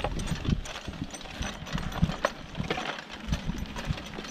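A harnessed horse walking on grass and dirt while dragging a wooden board behind her on her traces: irregular soft hoof steps, the board scraping and bumping along the ground, and scattered light clicks and knocks.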